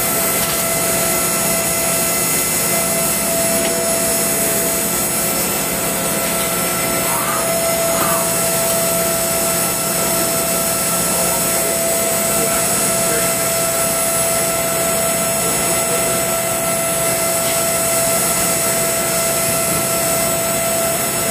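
Makino V22 vertical machining center's high-speed spindle hard-milling hardened powdered-metal steel with a small end mill. A steady machine sound with a constant mid-pitched hum and several high whining tones over a hiss.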